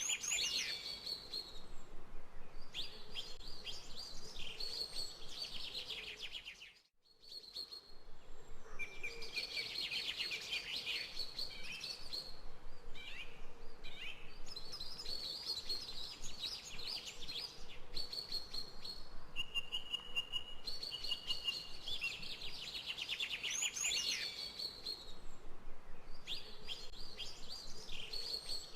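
Songbirds singing and chirping: phrase after phrase of high, rapid trills and twitters. The sound cuts out briefly about seven seconds in.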